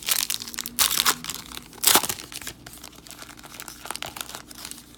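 Foil wrapper of a Panini Prizm trading-card pack being torn open and crinkled, with the loudest rips about one and two seconds in.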